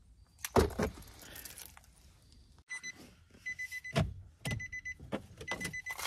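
Pickup truck's electronic warning chime beeping about once a second, a steady high tone with light clicks and jingling among the beeps. Two dull thumps come about half a second in, before the beeping starts.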